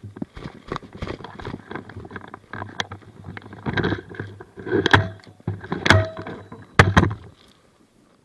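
Irregular rustling and knocking, with several louder sharp knocks about five to seven seconds in, after which it dies away.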